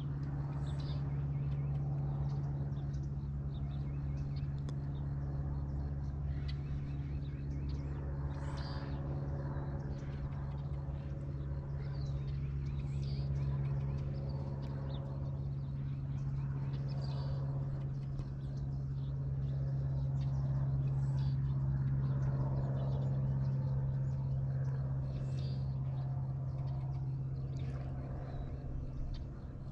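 A steady low hum with a few overtones, over which birds chirp briefly every few seconds.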